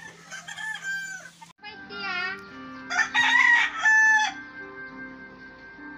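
A rooster crowing, loudest about three seconds in, with steady background music notes underneath from about two seconds in.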